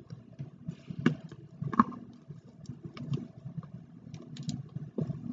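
Hands kneading and squeezing fluffy slime with Orbeez in it, in a plastic bowl: irregular squishes and small sticky pops, the loudest a little under two seconds in.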